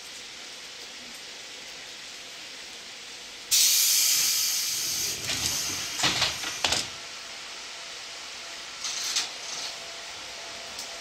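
Compressed air blowing off from a stopped electric commuter train's pneumatic gear: a sudden loud hiss that fades over about three seconds, with a few sharp knocks as it dies away and a shorter hiss a little later.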